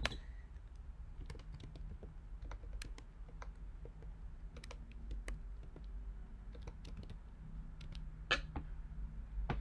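Computer keyboard typing: sparse, irregular keystrokes entering a short word, with a faint low steady hum underneath.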